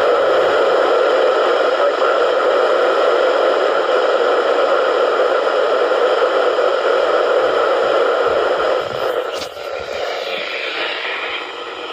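Loud, steady hiss of radio static from a receiver, in place of the broadcast voice. About nine seconds in, it drops in level and thins out.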